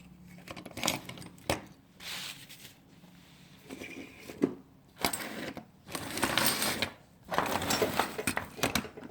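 Loose metal keys and key blanks being rummaged through by hand, clinking and jangling in repeated bursts.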